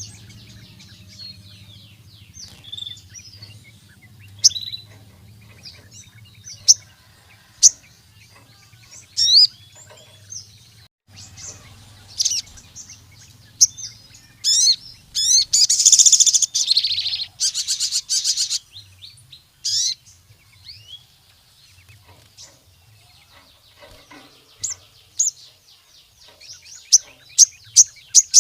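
Sogon sunbird singing in full voice: a string of high, sharp chirps and fast rattling trills, loudest in a dense run about halfway through and again near the end. A faint low hum sits underneath.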